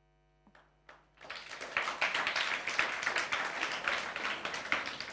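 Applause from a small audience, starting about a second in and fading toward the end.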